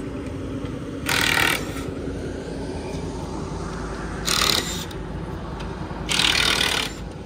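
Three short scraping, tearing noises, about a second in, just past four seconds and around six seconds, as a snowmobile shipping crate is worked open at its base, over a steady low rumble.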